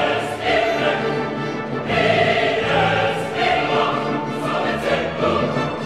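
Choral music: a choir singing long held notes.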